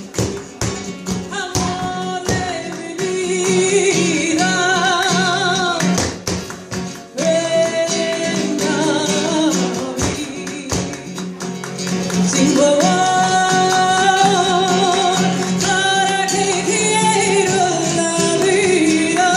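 Live flamenco: a singer holding long, wavering ornamented notes over acoustic guitar. Sharp percussive strikes come thick in the first few seconds and again briefly a little later.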